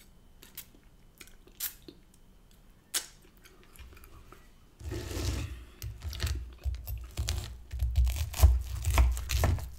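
Chewing a mouthful close to the microphone, with small mouth clicks. From about five seconds in, a knife saws through a breaded chicken Kiev on a wooden chopping board, scraping and knocking against the board.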